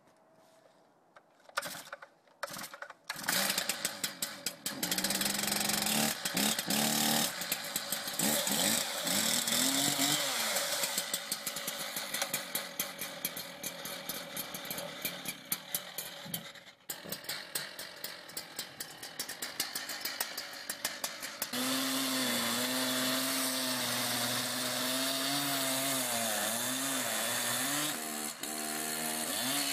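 A large two-stroke chainsaw with a very long bar is pulled over a few times and catches about three seconds in, then runs and is revved. About 21 seconds in, a chainsaw is running under load, cutting through a bundle of firewood logs with a steady, wavering pitch.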